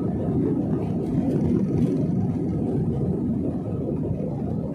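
Steady cabin rumble of a jet airliner on its takeoff roll, engines at takeoff thrust as it accelerates down a wet runway, heard from a window seat over the wing.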